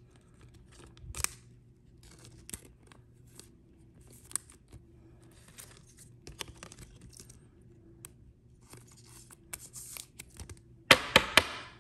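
Soft plastic rustling and small handling clicks as a trading card is slipped into a clear plastic sleeve, then a louder scraping crinkle of the plastic sleeve near the end.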